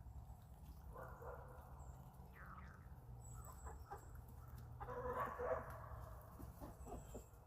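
Chickens clucking, a scattering of short soft calls with the loudest burst of clucks just after the middle, over a steady low hum.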